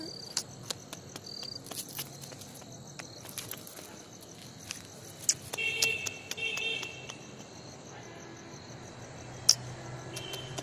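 Crickets chirping steadily, with scattered sharp clicks and taps. About six seconds in, two brief high squeaks.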